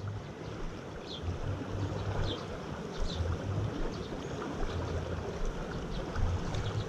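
Steady rush of river water over shallow rapids, with intermittent low rumbling on the microphone.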